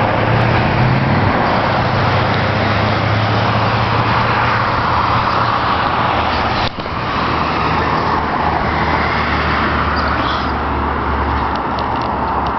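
Street traffic: cars driving past with a steady wash of tyre and engine noise and a low engine hum that rises and fades as vehicles come and go. There is a momentary dip about halfway through.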